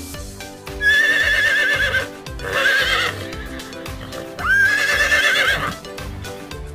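Horses whinnying three times, each a long, wavering neigh, over background music.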